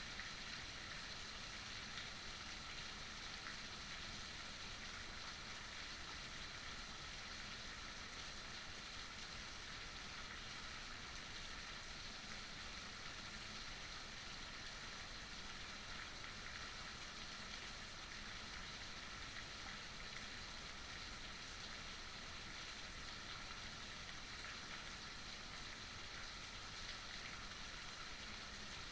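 Heavy rain falling steadily: an even, unbroken hiss with no change in strength.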